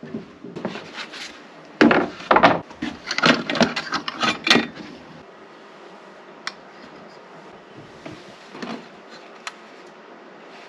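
Wood knocking and scraping as boards or pieces of timber are handled: a busy run of irregular knocks in the first half, then a quieter stretch with a few single clicks.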